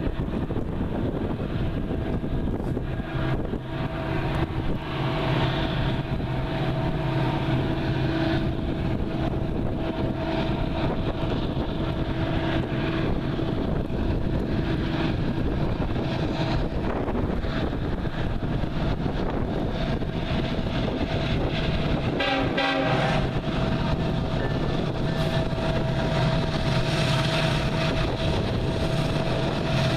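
Coal train approaching behind a BNSF EMD SD70ACE and a KCS GE ES44AC, the diesel locomotives running steadily as they draw near, with steady tones held over the engine sound.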